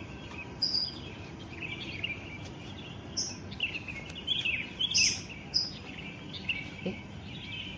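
Small birds chirping, a run of short high chirps and twitters, the sharpest about five seconds in, over a steady background hiss.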